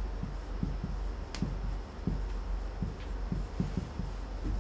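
Marker writing on a whiteboard: a run of short, soft strokes and taps, with one sharper click about a second and a half in, over a steady low hum.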